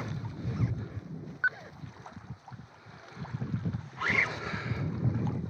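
Wind buffeting the action camera's microphone in an uneven low rumble, with water moving against the kayak's hull. A short sharp click comes about a second and a half in, and a brief hiss about four seconds in.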